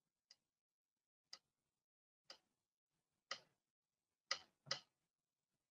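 Faint ticks from iPad Switch Control scanning, about one a second as the scan highlight steps from row to row on the communication grid; near the end two clicks come close together.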